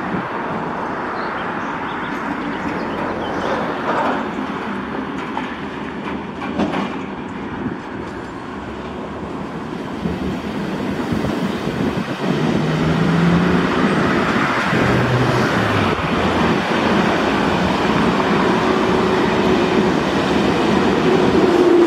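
Mixed freight train of sliding-wall and tank wagons rolling out, the wagons rumbling and knocking over the rails. From about halfway through it grows louder as an ICE high-speed train approaches on the next track, with a low hum near the end.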